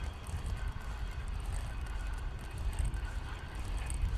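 Wind buffeting the microphone: a steady, uneven low rumble, with a few faint high chirps.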